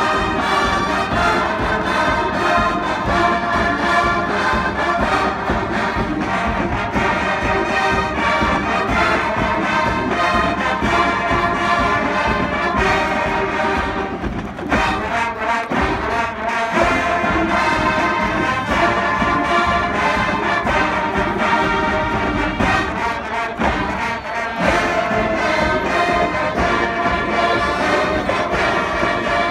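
Marching band playing a brass-led tune with drums, loud and full, easing briefly about halfway through before the full band comes back in.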